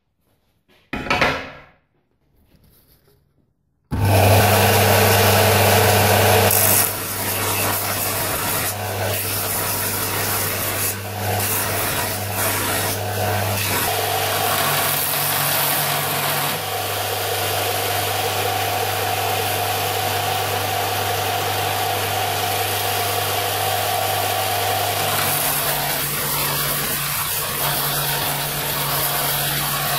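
Bench belt-and-disc sander running steadily, with a rusty steel axe head held against the moving abrasive belt and ground to take out the rust pitting. It comes in suddenly about four seconds in, after a short noise about a second in and a few seconds of near silence.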